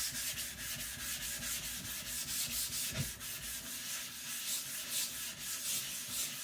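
Rapid, even back-and-forth grinding strokes on a wet sharpening stone, about five strokes a second.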